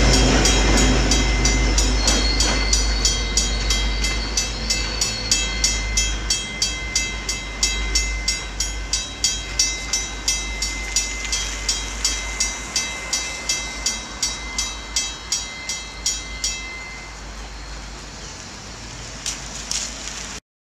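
Railroad crossing bell ringing in a fast, even rhythm of about two to three strokes a second while a commuter train's diesel locomotive rumbles past and fades away. The bell stops about three-quarters of the way through as the crossing clears.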